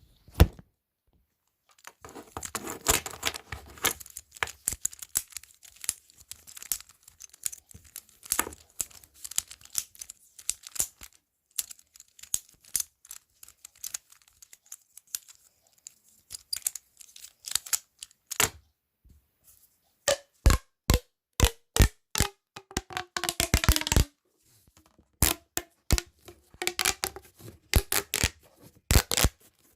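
Fidget toys handled close to the microphone: a long run of scratchy, crackling clicks and tearing sounds, then, about twenty seconds in, a quick series of sharp, loud clicks with a faint tone under them, followed by more scattered clicking.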